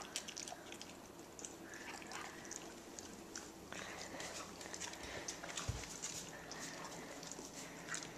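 A dog chewing and gnawing on a chew treat: a run of small, irregular clicks and crunches.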